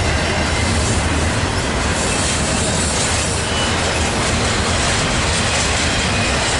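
Railcars rolling past on the track: a steady, loud rumble of wheels on rails.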